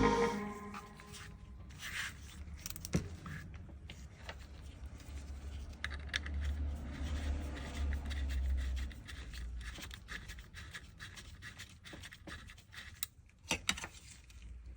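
Light scraping, rubbing and scattered small clicks of metal parts being handled, with a few sharper clicks near the end.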